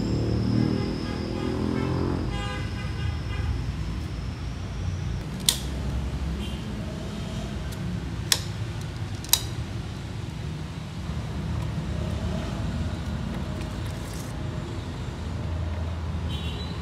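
Steady low rumble of road traffic with three sharp plastic clicks, one about five seconds in and two more about three and four seconds later, as the plastic parts of a fuel pump sender unit are fitted together by hand.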